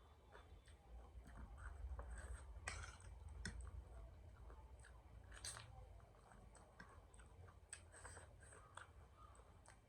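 Close-up chewing of a spicy puffed-rice chatpate: soft, irregular crunches and wet mouth clicks, with a couple of sharper crunches about a third and halfway through.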